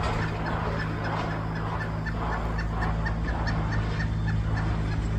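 Fowl-like bird calls: short high notes about three times a second with rougher clucking bursts between them, over a steady low hum.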